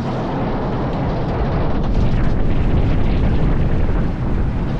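Wooden roller coaster train rumbling as it crests the lift hill and tips into the first drop, with wind rushing over the microphone. It grows louder about two seconds in.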